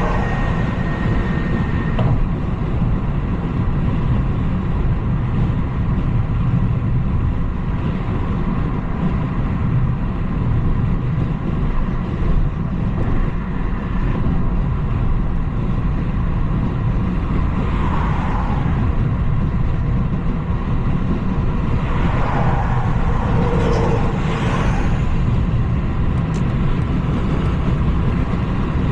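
BMW 330i driving along: a steady low rumble of engine and road noise, with a few brief swells about two-thirds of the way through.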